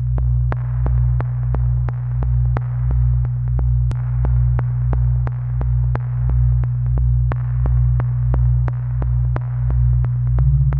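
Electronic music: a deep pulsing bass under a held low synth note, with a soft wash of noise and a light tick about three times a second. The low part changes shortly before the end.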